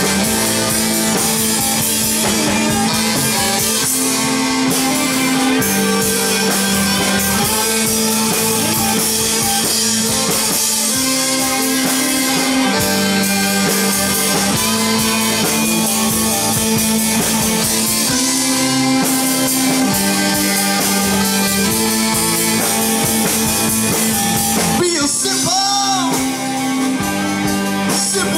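Live rock band playing an instrumental jam: electric guitar, bass guitar and drum kit, with a note bent up and back down about 26 seconds in.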